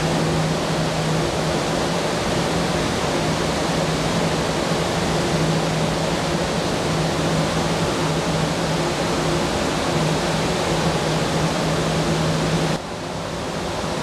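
Steady rushing noise with a low steady hum under it, dropping a little about thirteen seconds in.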